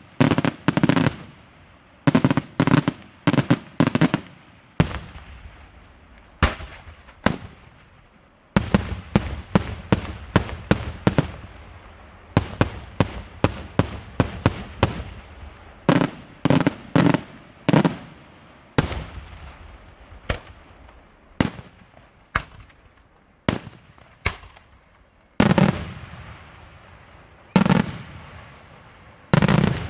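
Daytime fireworks display: a rapid, irregular barrage of loud shell bursts and bangs, often several in quick succession, each followed by a short echo.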